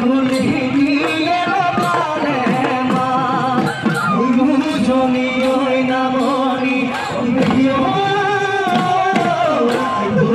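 Bihu folk song performed live: a singer's voice glides through an ornamented melody over dhol drums beating a steady, fast rhythm.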